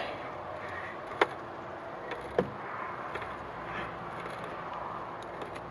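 Grease gun pumping grease into the track adjuster of a Bobcat E50 mini excavator, tensioning the track: two sharp clicks about a second apart and a few fainter ticks over a steady background noise.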